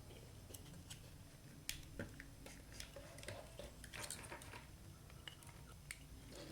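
Faint, scattered small clicks and light taps of tools and headphone parts being handled while a broken wire is soldered back onto a headphone speaker terminal.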